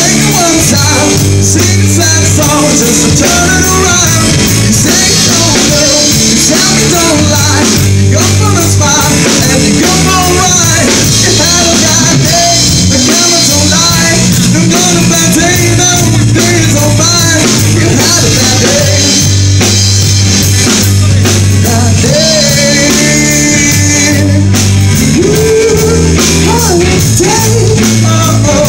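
Live rock band playing loud through amplifiers: drum kit, electric bass and electric guitar, with a male singer on a microphone.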